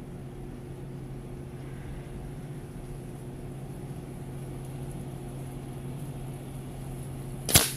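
A steady low hum, then about seven and a half seconds in a single sharp shot from a Kral Puncher Nish .22 (5.5 mm) PCP air rifle fired at full power.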